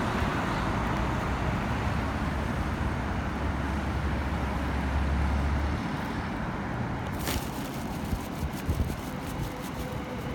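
Yokosuka Line test train passing close by: a steady rumble with a low hum that drops away about six seconds in, then a sharp crack and a run of quick clicks near the end.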